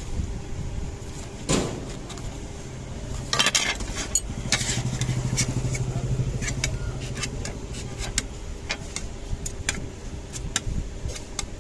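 Small sharp clicks and clinks of tools and phone parts being handled on a repair bench, with a knock about a second and a half in. A steady low hum joins for a few seconds in the middle.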